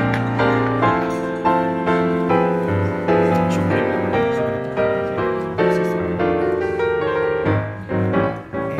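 Background piano music, a steady run of notes about two a second.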